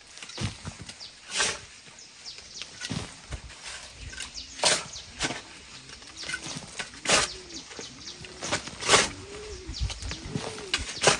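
Metal shovel digging into and scraping through loose, clumpy dirt, about five strokes roughly two seconds apart, with small crumbling clicks between them. In the second half an animal's low call rises and falls, repeating every half second or so.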